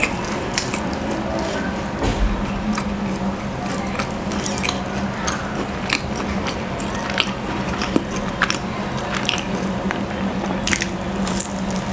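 Close-miked chewing and biting of a flaky puff-pastry cheese roll, with many sharp little crackles of the crust throughout.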